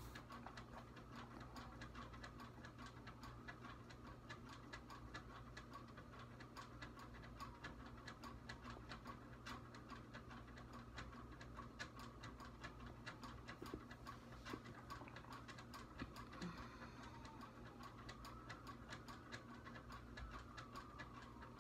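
Faint, even ticking of a clock over a low steady hum in a quiet room.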